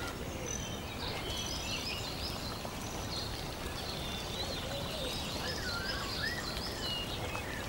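Birds chirping and twittering over a steady, even hiss of outdoor background noise.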